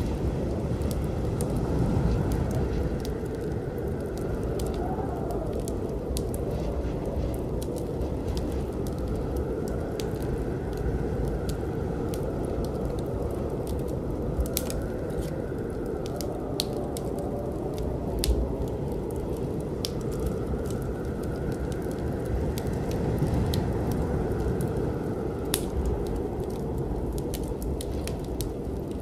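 Steady low rumbling noise with scattered sharp crackles and clicks throughout, and a faint swelling hiss that rises and falls every few seconds.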